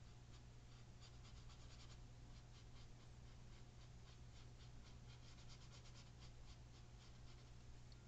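Faint scratching of a fine paintbrush on canvas in quick short strokes, over a low steady hum.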